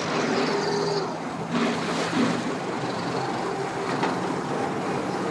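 Outboard motor running in gear at low speed, pushing the boat up onto its trailer, with the propeller churning the water behind it.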